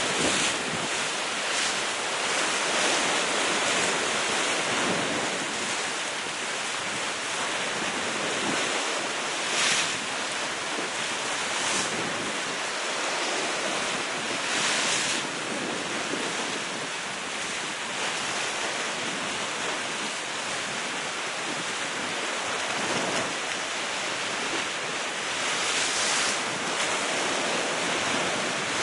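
Sea waves breaking against the rocks at the foot of a cliff: a continuous rushing wash that swells with each breaking wave, with some wind buffeting the microphone.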